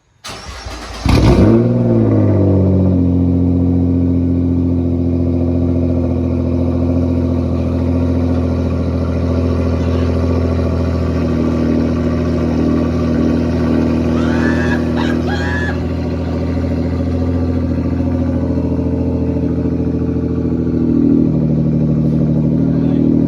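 Nissan R35 GT-R's twin-turbo 3.8-litre V6 with a 4-inch titanium straight-pipe exhaust cold-starting: a brief crank, it catches about a second in with a loud flare, then runs at a loud, steady cold idle. The idle note shifts near the end.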